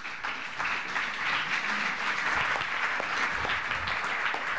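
Conference audience applauding: a sustained round of clapping that swells over the first second and holds steady.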